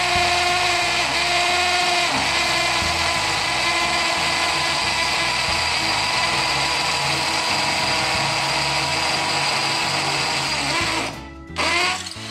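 Porter-Cable PCC621 20V cordless hammer drill with a 3/8-inch bit drilling into a concrete beam, running steadily and stopping near the end, with a short blip just after.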